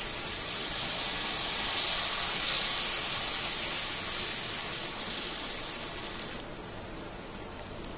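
Pearl millet adai batter sizzling on a hot cast-iron dosa griddle as it is spread with a ladle: a steady hiss that drops sharply in level about six and a half seconds in.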